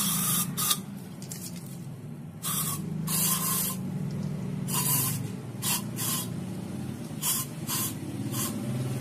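Aerosol can of injection cleaner sprayed into the intake port in about ten short hisses of varying length, to dissolve heavy carbon deposits.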